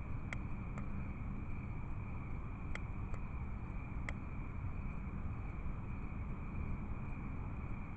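A few faint clicks of a lighter being struck to light a cigar, over a steady low rumble of background noise and a thin steady high tone. The clicks fall in the first half, some close together and some about a second apart.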